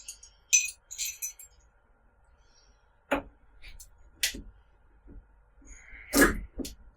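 Scattered light clinks and a few sharp knocks of hard objects being handled, the loudest knock a little after six seconds in.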